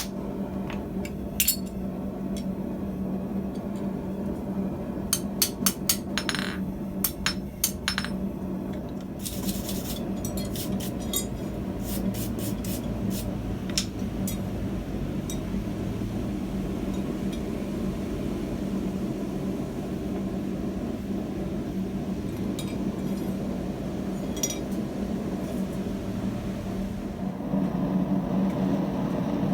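Scattered sharp metallic clinks and light taps of steel on steel from blacksmithing work at the anvil, clustered in the first half. Under them is a steady machine hum with a low tone.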